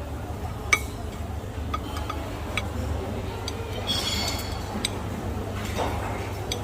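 Scattered clinks of dishes and glassware, with a short ringing clatter about four seconds in, over a steady low hum of the dining room.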